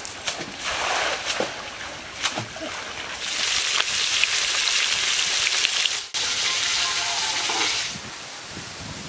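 Food frying in hot oil: a dense crackling sizzle that starts about three seconds in, lasts about five seconds and breaks off for an instant midway. Before it come a few scattered knocks and clatter.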